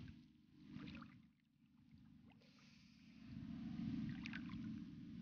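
Faint swishing and lapping of shallow water around hands and a fish being moved back and forth to push water through its gills before release, with a few small splashes; the swishing grows louder a few seconds in.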